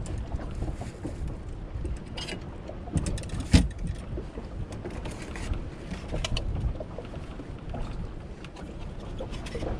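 Wind buffeting the microphone on a small fishing boat, with scattered clicks and knocks from fishing gear being handled. The loudest knock comes about three and a half seconds in.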